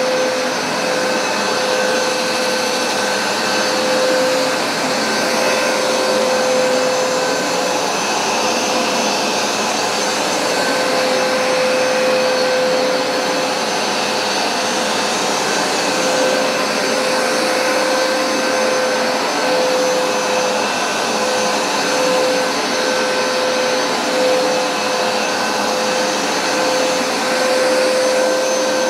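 Hoover SmartWash Pet carpet cleaner running continuously while cleaning carpet: a steady whine over a rush of suction air.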